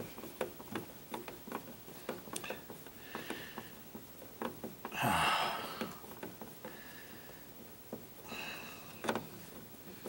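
Faint clicks and scrapes of a screwdriver working a terminal screw on a wall light switch in its electrical box, with a short hiss about five seconds in and a weaker one near the end.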